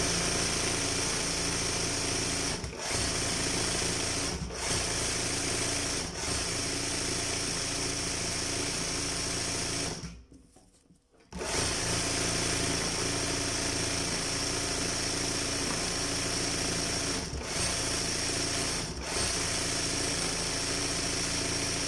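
Sewing machine running steadily at speed as it embroiders fabric held in a hoop. It dips briefly every couple of seconds and stops completely for about a second near the middle before starting again.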